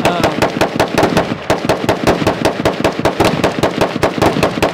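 Rapid gunfire from other shooters on the range mag dumping: a fast, uneven string of shots, several a second, fired as fast as the triggers can be pulled.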